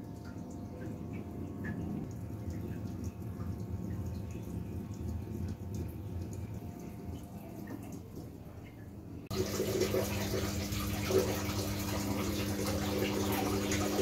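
Haier top-loading automatic washing machine filling with water for its second rinse: after a faint low rumble, water suddenly starts pouring into the drum about nine seconds in, with a steady hum under the rush of the water.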